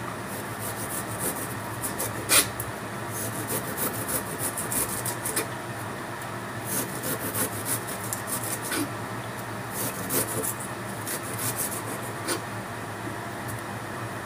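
Small kitchen knife scraping and paring the skin off a ginger root over a wooden chopping board: a steady rasping scrape with scattered light clicks, and one sharp knock about two seconds in.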